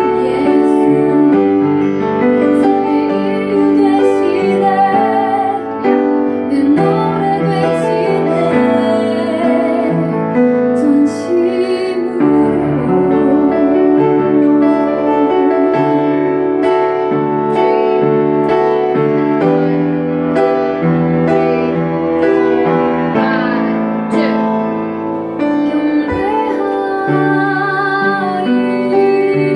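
A woman singing a song with piano accompaniment, holding long notes with vibrato over steady piano chords.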